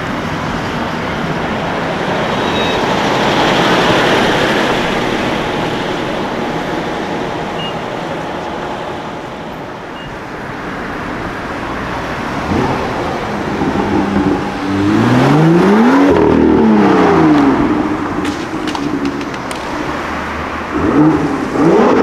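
City street traffic noise, then a car's engine rises in pitch and falls away as it drives past about two-thirds of the way through. Near the end another car's engine revs up.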